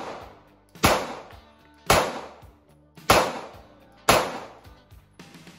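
Four 9mm pistol shots from a Glock firing New Republic 115 grain full metal jacket rounds, spaced about a second apart in a steady string, each ringing off briefly.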